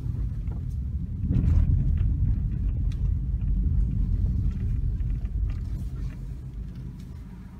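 Car engine and road noise heard from inside the cabin while driving: a steady low rumble that swells about a second in and eases off near the end.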